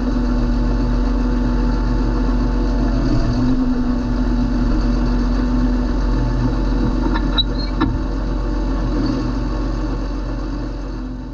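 John Deere 8320 tractor's six-cylinder diesel engine running steadily with an even hum. A few light clicks come a little past halfway, and the sound begins to fade near the end.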